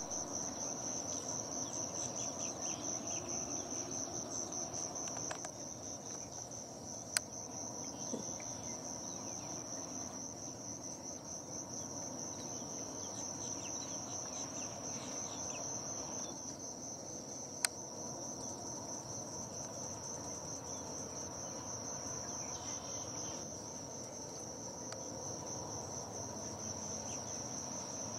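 A steady, high-pitched insect trill that runs on without a break, with two sharp clicks about ten seconds apart.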